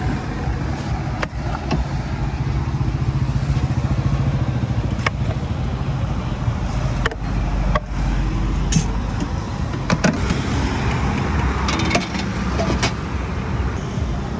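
Steady low rumble of passing road traffic, with scattered sharp metal clinks and scrapes as a spatula scoops locho from a steel steamer tray.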